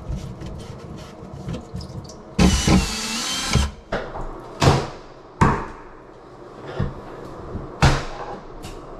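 Cordless drill-driver running with a wavering whine for about a second, backing a screw out of the vanity cabinet, followed by three sharp knocks as the cabinet is worked loose.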